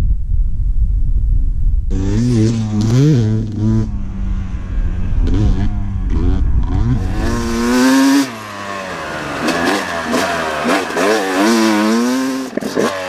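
Yamaha YZ250X two-stroke dirt bike engine revving up and down as the bike rides a dirt trail, with wind rumbling on the microphone before the engine comes in about two seconds in. The wind rumble drops away about eight seconds in while the revving carries on.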